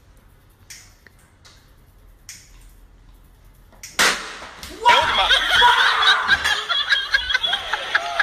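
A few faint taps, then a sudden loud smack about four seconds in, followed by loud excited voices shouting and laughing.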